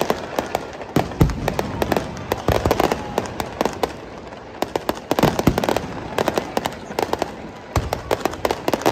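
Aerial fireworks bursting: a dense crackle of rapid sharp pops in clusters, with deeper booms about a second in, around the middle and near the end.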